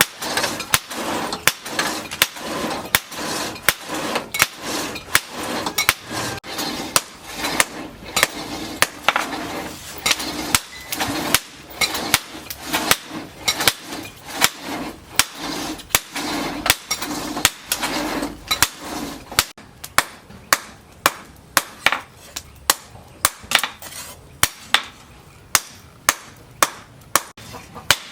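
Hand hammer striking leaf-spring steel on an anvil in steady forging blows, about two a second. A steady background noise under the blows drops away about two-thirds of the way through.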